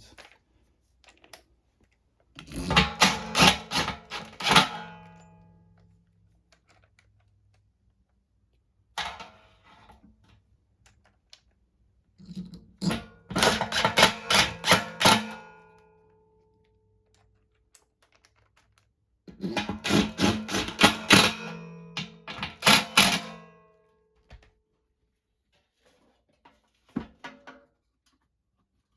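Cordless impact driver running bolts into a blower motor's mounting bracket: three separate bursts of rapid hammering clicks, each ending with the tool's motor winding down.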